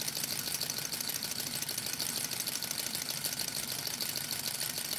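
Small model Stirling engine, fired by an alcohol burner, running with a fast, even mechanical clatter while its fuel is nearly spent.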